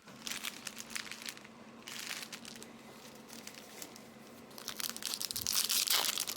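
Plastic wrapping on a box of trading cards being crinkled and torn open: dense crackling and tearing that grows louder and busier in the last second and a half.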